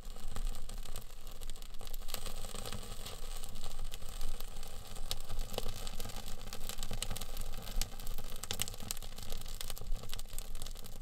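Small kindling fire of lichen and twigs catching in an open wood-stove firebox, crackling with many sharp pops over a steady low rumble.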